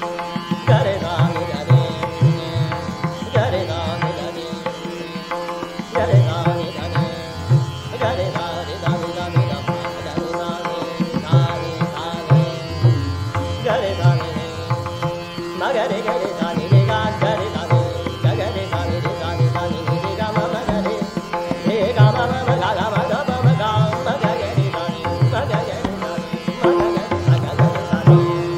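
Hindustani classical music in raag Yaman: a male voice singing over a steady tanpura drone, with tabla strokes keeping the beat.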